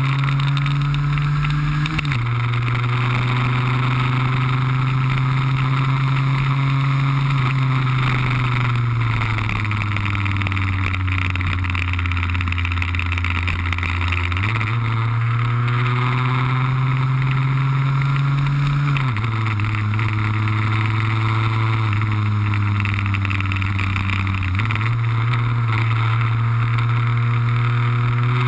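Onboard sound of a Lambretta cut-down's RB20-kitted two-stroke engine running at speed. Its pitch drops sharply twice, as at upshifts, sinks off the throttle, and jumps back up twice, over a steady rushing hiss.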